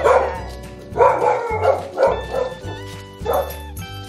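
A dog barking in short bursts, about one a second, over upbeat background music.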